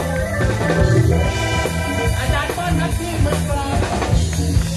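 Live Thai-Western fusion band playing: ranat ek xylophone melody with electric guitar and congas over a steady beat and a heavy bass line.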